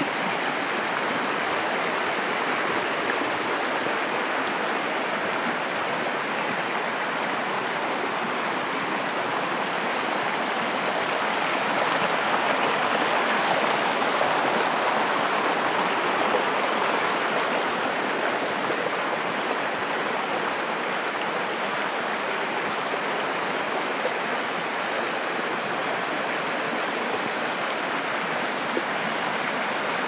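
Steady rush of a mountain stream's flowing water, swelling slightly about halfway through.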